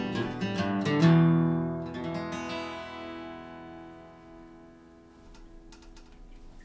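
Acoustic guitar strumming chords, then one last chord struck about a second in and left to ring out, fading away, with a few faint clicks near the end.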